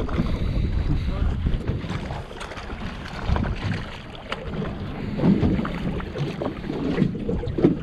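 Wind buffeting the microphone over water lapping against a small boat's hull, with scattered short clicks and knocks.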